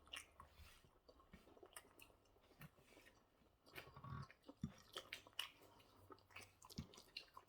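Faint chewing and mouth sounds of a person eating spaghetti bolognese, with scattered small wet clicks.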